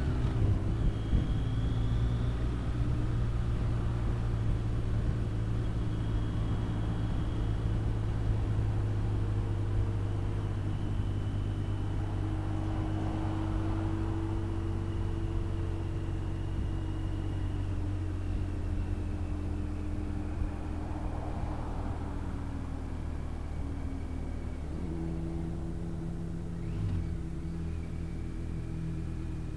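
Motorcycle engine running steadily at road speed under wind and road noise. About three-quarters of the way through, the engine note drops briefly and then climbs again.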